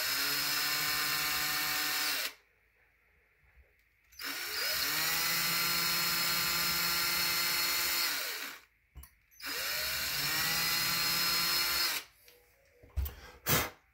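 Ryobi cordless drill running a small bit into the wooden ladder rail in three short runs, the motor whining up to speed and winding down each time, to bore a shallow pilot hole for a hanger nail. A couple of sharp knocks near the end.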